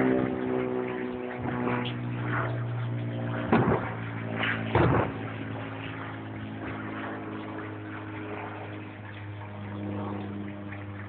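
Fireworks going off, with two loud bangs about three and a half and five seconds in and a fainter one near two seconds, over a steady low mechanical hum.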